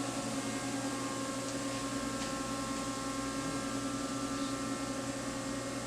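Steady hum of a powered-up Okuma Crown L1060 CNC lathe, several steady tones over a low hiss.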